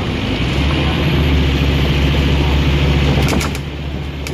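Scania OmniCity bus engine heard from inside the passenger saloon while under way. It is a steady low drone that grows stronger about half a second in and drops back a little after three seconds, when a few sharp rattling clicks sound.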